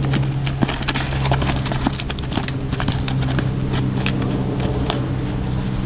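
Hoofbeats of a filly cantering on sand: a run of soft, irregular clicks over a steady low hum.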